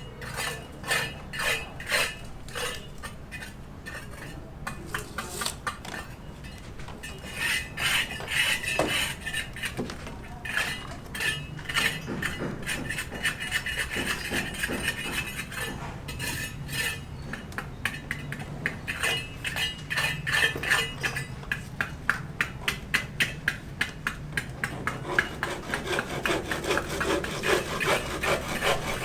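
Rapid, irregular clinking and scraping of hard objects, mostly metal, with runs of quick even strokes in places.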